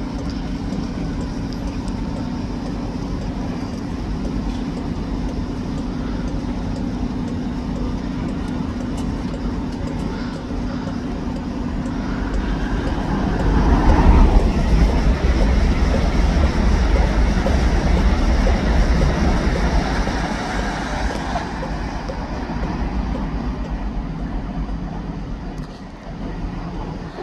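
LNER InterCity 225 train at a station platform giving a steady low electric hum, then a louder rumble that builds about twelve seconds in, peaks a couple of seconds later and eases off after about twenty seconds.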